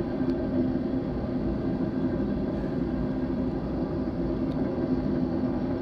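BNSF intermodal freight train passing, a steady low rumble with a constant hum.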